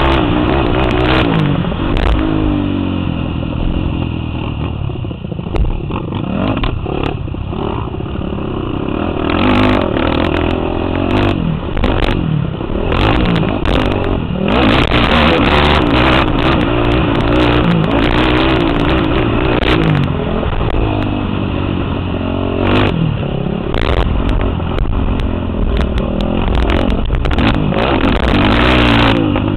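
Off-road quad's engine running hard on a dirt track, its pitch rising and falling repeatedly as the throttle opens and closes. Frequent knocks and clatter come from the machine over the bumps.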